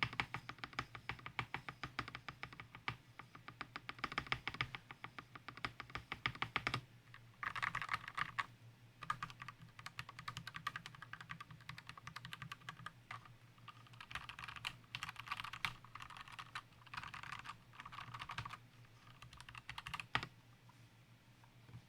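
Typing on a custom mechanical keyboard with lubed Gateron Yellow linear switches mounted in a steel plate inside a plastic case. It is a fast, continuous run of keystrokes for about the first seven seconds, then bursts of typing broken by short pauses, thinning out near the end.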